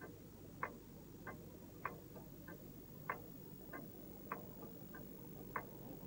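Pendulum wall clock ticking faintly and evenly, a little under two ticks a second, the tick and the tock alternating stronger and weaker.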